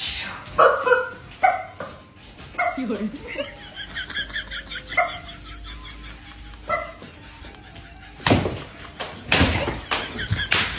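Rubber screaming-chicken toys squawking in short bursts, again and again, as they are squeezed and stepped on. Near the end come a few louder, harsher bursts.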